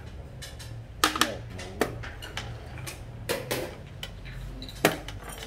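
Xiangqi pieces clacking down on the wooden board and against other pieces: about six sharp clacks, some in quick pairs.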